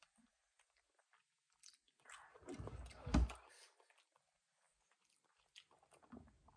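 Close-up chewing and mouth sounds of a person eating beef stew by the spoonful, loudest about two to three and a half seconds in, with a few faint clicks.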